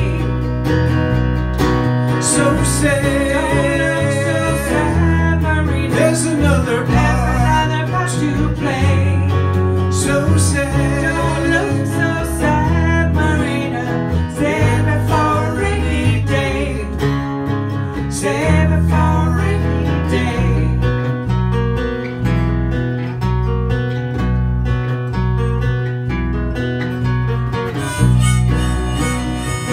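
Instrumental break in a song: acoustic guitar strumming chords under a harmonica playing the melody.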